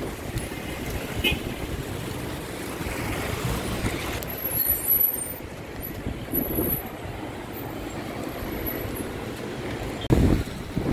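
Street traffic: vehicle engines and tyres passing on the road, with a brief loud thump near the end.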